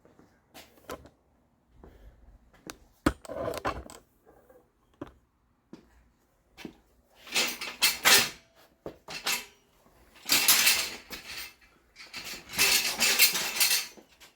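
Metal equipment being handled: scattered clanks and clicks, then three longer bursts of metal rattling and scraping, about seven, ten and twelve seconds in.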